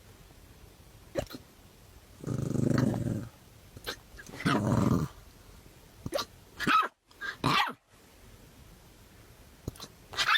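A dog growling twice, each growl about a second long, then giving several short, higher yips.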